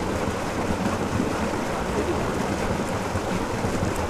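Steady wind noise on the microphone: an even, low hiss with no distinct events.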